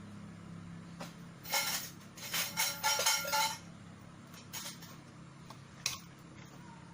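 Small hard metal objects clinking and rattling against each other in a quick cluster for about two seconds, then a single sharp click later on.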